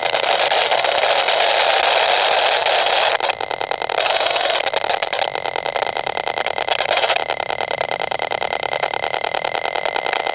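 Radio-frequency meter's audio output giving a loud, rapid buzzing crackle of evenly spaced ticks with a thin steady whistle, changing texture a few times. It is the meter rendering the microwave emissions of a nearby Wi-Fi router as sound.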